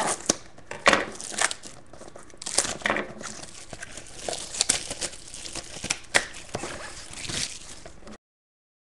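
Crinkling and tearing of the wrapping on sealed trading-card boxes as they are ripped open by hand, in irregular rustles with sharp crackles. The sound cuts off to dead silence about eight seconds in.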